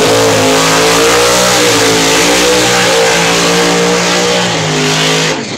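Drag car's engine revved high and held during a burnout, the rear tyres spinning in smoke; the engine note stays high with slight wavering, then drops off abruptly about five seconds in.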